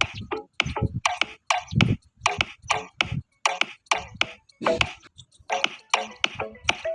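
Background music with a quick, even percussive beat.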